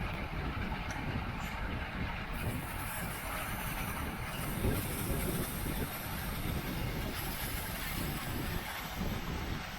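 Wind rushing over the microphone and a steady low road rumble from a bicycle riding at race speed.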